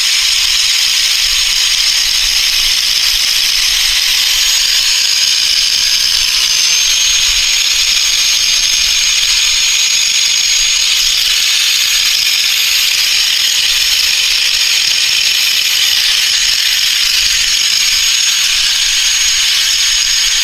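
A grinder grinding the head off a rivet pin on a motorcycle chain, cutting the chain to length. It is a loud, continuous hiss with a high steady whistle that rises slightly about seven seconds in.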